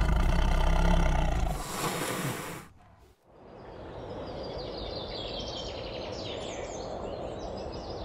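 A deep, rumbling tiger roar that dies away about three seconds in, followed by steady forest ambience with many birds chirping.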